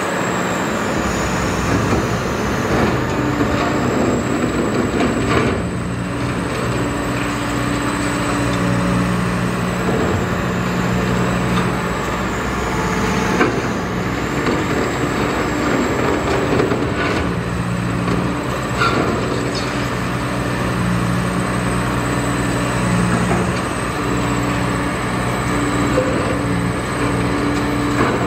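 Demolition excavator's diesel engine running continuously, its note swelling and easing as the machine works, with a few scattered knocks.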